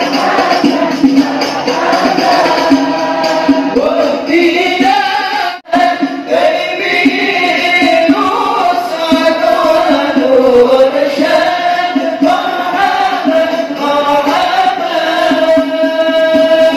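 Devotional Islamic sholawat to the Prophet sung by many voices together to a steady melody, with tambourine-like hand percussion. The sound drops out briefly about five and a half seconds in.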